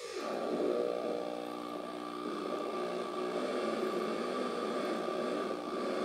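Oyster Theremin, a four-oscillator theremin with galvanized oyster-shell antennas, droning as several electronic tones mixed together. One tone glides down in pitch at the start, then the tones hold and waver as hands move near the antennas.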